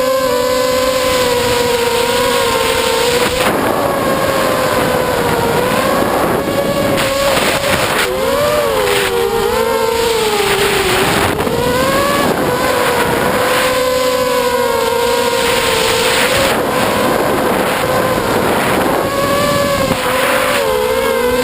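Quadcopter's four brushless motors (2205 2350kv on 4S) and propellers whining, the pitch rising and falling continuously with throttle changes, over wind rush on the onboard camera's microphone.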